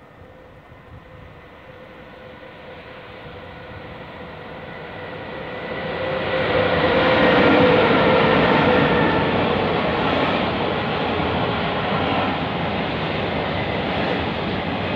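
Freight train rolling through a station behind an SNCF-built E436 (BB 36000-class) electric locomotive, with the rumble of wheels on rail. It swells from about six seconds in to its loudest near the eighth second, with several steady whining tones over the noise, then goes on rolling steadily as the wagons pass.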